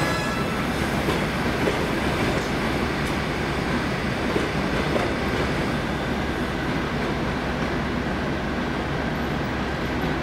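EP2K DC electric locomotive at the head of a passenger train, giving a steady low hum and rumble with a few faint clicks.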